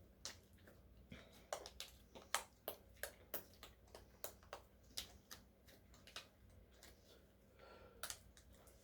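Foam slime being squeezed and stretched by hand, giving faint, irregular little clicks and pops, several a second.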